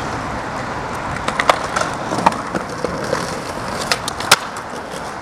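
Skateboard on concrete: a series of sharp clacks as the board's tail and wheels strike the ground, the loudest about a second and a half in and just past four seconds, over a steady street hiss.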